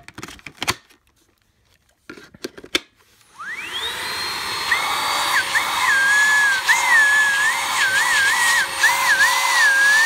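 A few sharp clicks, then about three seconds in the Hart 20V brushless cordless stick vacuum's motor starts. It whines up in pitch over about a second, then runs steadily with a wavering whistle over the whine.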